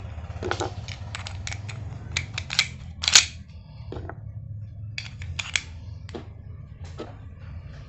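Parts of a KJW 1911 airsoft pistol's slide being handled and fitted together: a series of irregular small clicks and clacks, with the loudest clack about three seconds in. A steady low hum runs underneath.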